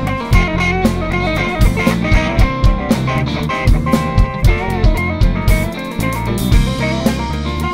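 Instrumental passage of a funk-rock band song: electric guitar playing a melody line with bent notes over bass and a drum kit keeping a steady beat.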